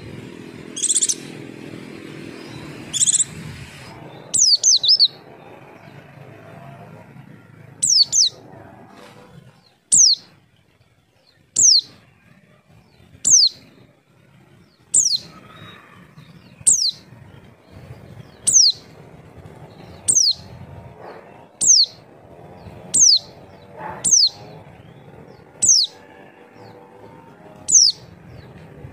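White-eye (pleci) calls: short, high, downward-slurred notes, one about every second and a half, with a few sharper chirps in the first few seconds. This is the pleci lure call used to prompt other white-eyes to answer.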